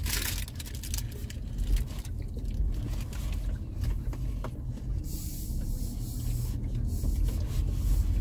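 Car heard from inside the cabin while driving slowly, a steady low rumble of engine and tyres, with a short stretch of hiss about five seconds in.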